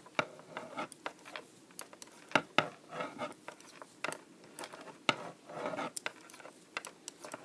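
Knitting needles clicking against each other as stitches are worked, with yarn rubbing and sliding between the clicks; the clicks come irregularly, the loudest about two and a half seconds in.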